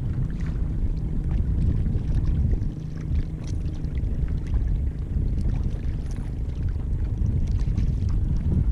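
Outboard motor running steadily as the boat trolls, a constant low rumble, with light splashing from a hooked fish thrashing at the surface beside the boat.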